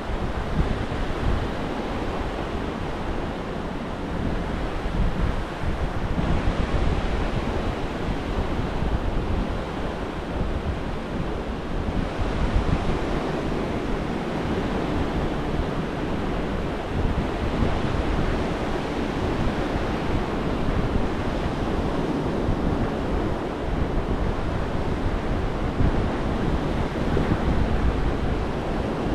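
Gulf of Mexico surf breaking and washing up a sandy beach, a steady rush that swells every few seconds as waves come in, with wind buffeting the microphone.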